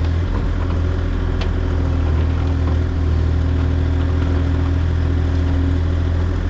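Kubota mini excavator's diesel engine running steadily while its boom and bucket dig out a slab of turf and soil.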